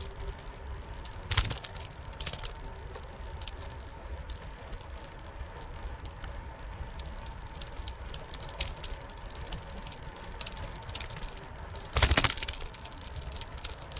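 Bicycle riding on a concrete path, heard from the handlebars: a steady low rumble of tyres and wind with small rattles and a faint steady whine. There are two louder knocks, about a second in and near the end, as the bike jolts over bumps or joints in the concrete.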